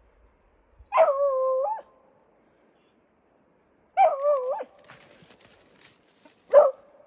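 An animal gives three drawn-out, whining calls, each under a second long, with the last the shortest.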